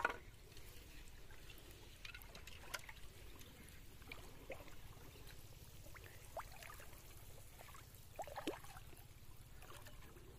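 Faint water sounds in shallow paddy water: a few scattered drips and small plops, each brief, over a low steady rumble.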